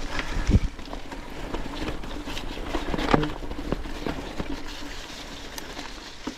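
Trek Supercaliber mountain bike climbing a rocky trail: tyres crunching over stones with irregular knocks, two louder ones about half a second and three seconds in, over a low wind rumble on the microphone.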